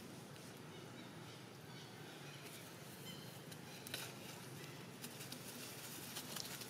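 Long-tailed macaques moving about on dry leaf litter: a few faint, short, high squeaks from a young macaque and scattered clicks and scuffles, the sharpest about four seconds in, over a steady outdoor hiss.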